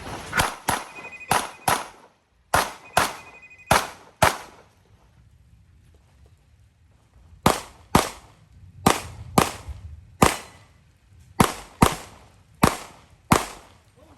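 Handgun shots fired mostly in quick pairs, about eighteen in all, with a pause of about three seconds in the middle. A brief ringing tone follows two of the early shots.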